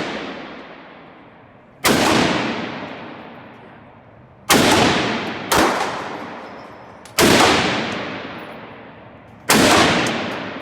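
Five single gunshots at a shooting range, a couple of seconds apart, two of them about a second apart near the middle. Each shot is followed by a long echoing decay.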